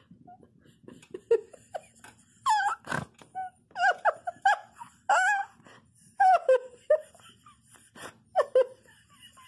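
A puppy giving a quick series of short, high yips that dip in pitch, with a sharp knock about three seconds in.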